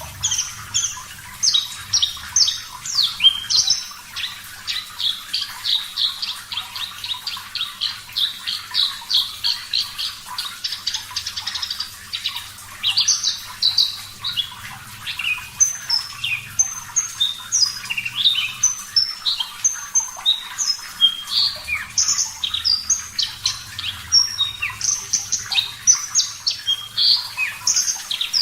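Javan bushlark (branjangan, race parva) singing a long, unbroken song of high chirps and trills, with a fast rolling run of notes in the first half and more spaced, varied phrases after it.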